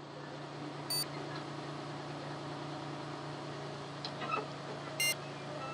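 A miniature-railway locomotive's engine idling with a steady low hum, and two short high beeps, about a second in and about five seconds in.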